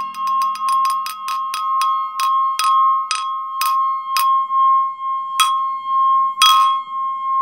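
Glass ringing: a steady singing tone that swells and fades about twice a second. Over it come about twenty sharp, ringing taps that start rapid and slow down, the loudest one near the end.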